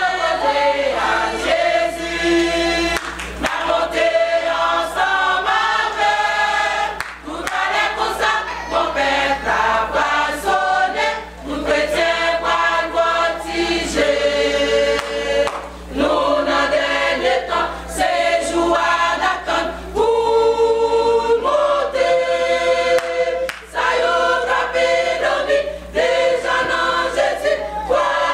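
A choir singing a worship song in phrases of held notes, with brief breaks between the phrases.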